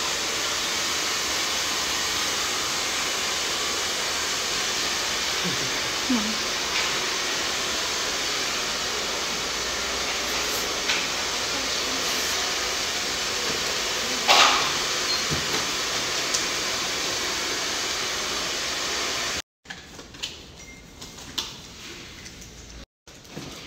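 Steady loud rushing noise of blowing air, with one sharp click about fourteen seconds in. The noise cuts off abruptly near the end, leaving a quieter room with a few light clicks.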